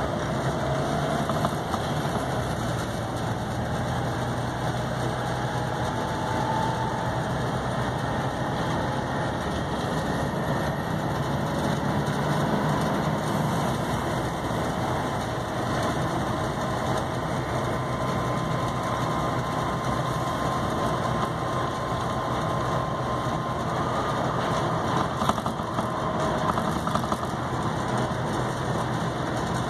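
Volvo B7TL bus's 7.3-litre Euro III diesel engine running steadily, with a faint whine that comes and goes.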